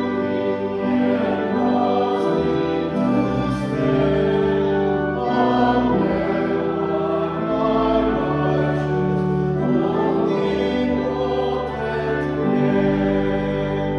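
A congregation singing the closing hymn with accompaniment, in slow, sustained chords that move every second or two.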